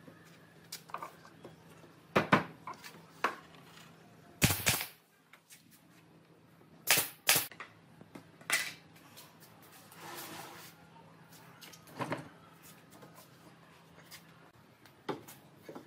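Irregular sharp knocks and clacks of wood being worked, single strikes and quick pairs a second or more apart, over a faint low hum that stops near the end.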